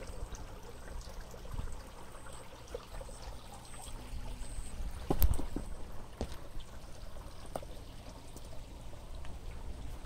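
Water running and trickling steadily, with a sharp knock about five seconds in.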